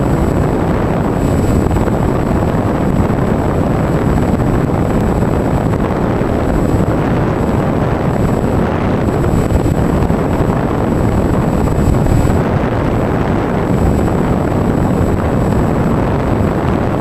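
Steady heavy wind rush on the microphone of the onboard camera of a Bixler 2 FPV plane in flight, with a thin steady high whine above it.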